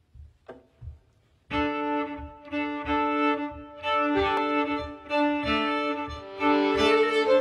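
Bowed string quartet of cello, violin, Cretan lira and nyckelharpa coming in together about a second and a half in with a Cretan folk tune in long held notes. A steady low thump, about three a second, keeps the beat before and under the strings.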